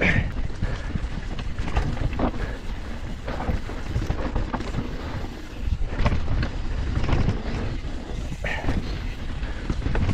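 Mountain bike tyres rumbling down a packed-dirt trail, with wind buffeting the microphone and knocks and rattles from the bike over bumps every second or two.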